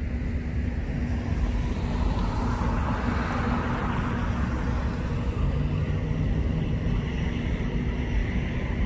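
Outdoor road-traffic noise with a heavy low rumble, as a vehicle swells past and fades away about three to five seconds in.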